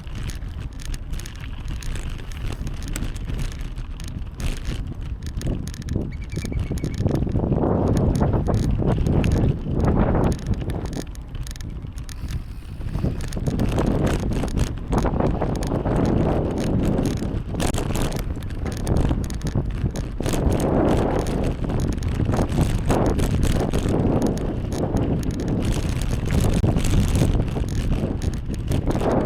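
Wind buffeting the microphone of a bicycle-mounted or rider-worn camera, with tyre and road noise from the ride. It is a low rushing sound that grows louder about seven seconds in, then swells and eases in gusts.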